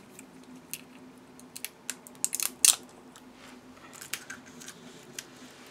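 Small plastic clicks and taps as a plastic acrylic paint marker and its cap are handled and fiddled with, with a quick run of louder clicks about two and a half seconds in. A faint steady hum lies underneath.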